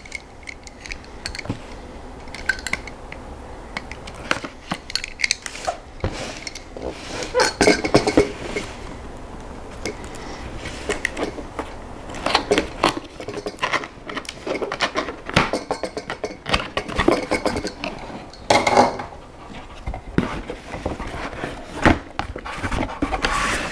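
Cardboard box of an all-in-one liquid CPU cooler being handled and opened by hand: irregular scraping, tapping and rustling of cardboard flaps, with a few louder clusters of clatter about a third of the way in, around halfway, and near the end.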